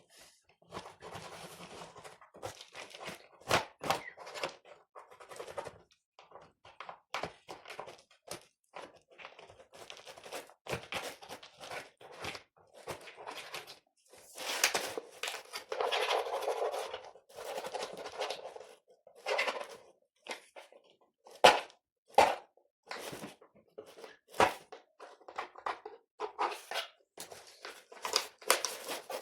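A computer keyboard being handled and cleaned by hand: irregular plastic clicks and knocks, with a few longer stretches of rubbing.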